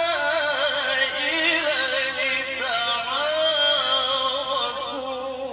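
A solo voice singing a slow melody with long held notes, full of wavering and melismatic turns, growing fainter toward the end.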